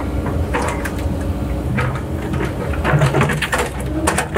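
Cat 308 long-stick excavator running steadily from the cab while it works, with irregular knocks and clunks of riprap rock being handled throughout.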